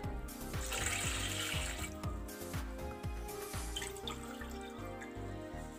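Water poured from a glass into a bowl of arrowroot powder, a splashing pour from about half a second in until about two seconds in, over background music with a steady beat.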